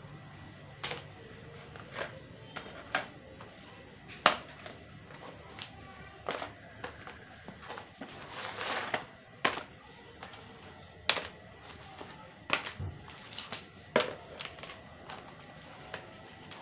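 Irregular light knocks and clicks, roughly one a second, as plastic trays and sheets of set hide glue are handled and laid down on a wooden workbench.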